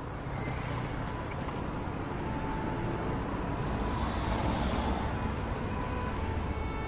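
City road traffic: a steady low rumble of cars, swelling about four seconds in.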